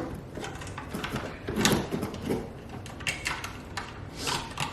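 Scattered light clicks and knocks of tools and small hardware being handled, a few of them sharper than the rest.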